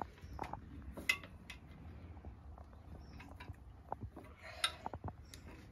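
Faint metallic clinks and taps, with a short scrape about four and a half seconds in, as a narrowboat's weed hatch clamp and lid bar, done up very tight, are worked loose by hand.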